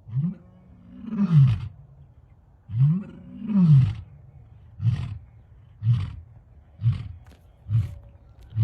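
Lion roaring: two long, deep roars that rise and fall in pitch, then a series of shorter grunts about one a second, the usual close of a lion's roaring bout.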